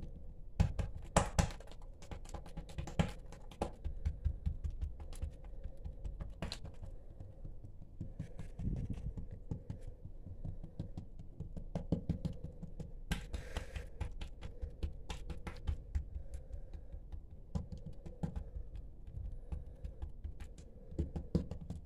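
Hands patting and pressing oiled flatbread dough thin on a countertop: quick, irregular soft taps and pats, with a few louder slaps in the first few seconds.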